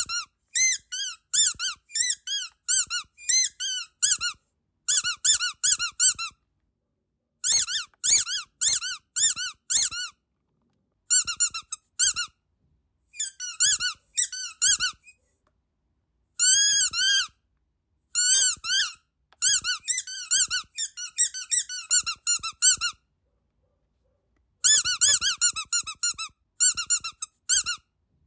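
Rubber duck squeaky dog toy being squeezed over and over: quick high-pitched squeaks, several a second, each rising and falling in pitch. They come in bursts of a few seconds with short pauses between.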